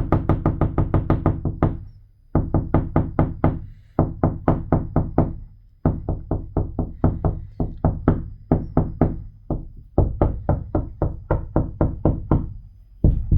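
Rapid knocking on a window pane, about five or six knocks a second, in runs of one to a few seconds broken by brief pauses, with a low ring from the struck glass.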